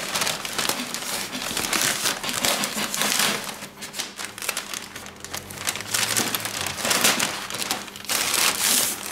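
Masking paper crinkling and rustling as it is handled and pressed around a Vespa scooter's painted bodywork, with masking tape being pulled off its roll. The crackle comes and goes and is loudest near the end.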